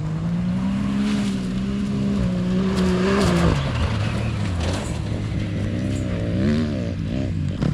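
Can-Am Maverick X3 side-by-side engine pulling under steady throttle, its pitch creeping up, then dropping off about three and a half seconds in. The revs then rise and fall repeatedly as the throttle is worked.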